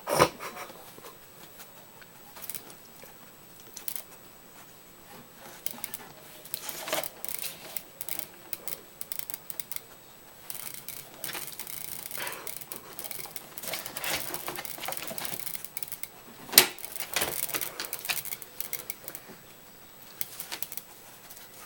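A dog pawing at an aquarium's thick glass: irregular clicking and scratching taps, with one sharper knock about two thirds of the way through.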